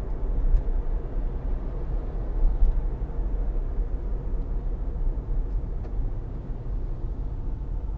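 Steady low rumble of road and tyre noise heard inside the cabin of a moving Tesla Model Y electric car.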